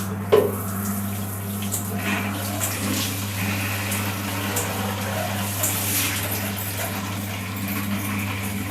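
Water running and splashing from a bathroom tap or shower, over a steady low hum. A sharp knock just after the start is the loudest sound.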